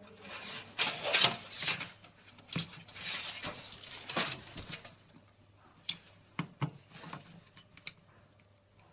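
Hands handling computer parts: irregular rustling and rubbing for about five seconds, then a few sharp clicks.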